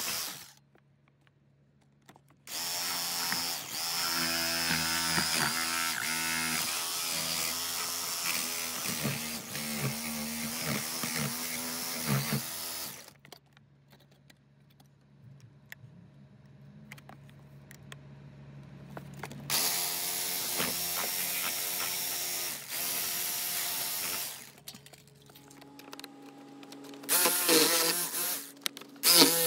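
Ryobi 18V cordless jigsaw cutting a round hole through a sheet-metal roof skin. The saw runs in three bursts: about ten seconds, a pause, about five seconds, another pause, and a short loud burst near the end.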